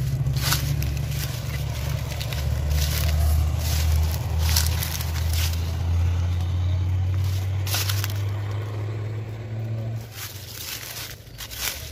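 Dry corn leaves and stalks crackling and rustling as someone brushes and steps through a field of standing dried corn, over a steady low rumble that drops away about ten seconds in.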